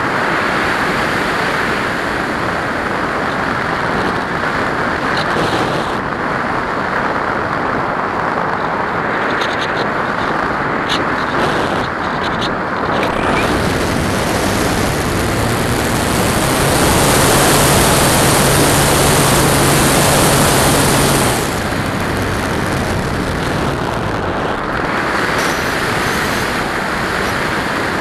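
Wind rushing over a model airplane's onboard camera in flight. About halfway through, the propeller motor runs for several seconds, adding a steady low hum and a louder rush, then cuts out and the wind noise goes on.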